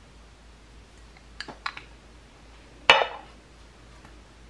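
Makeup packaging being handled: a few light clicks about a second and a half in, then one sharper clack with a short ring near three seconds.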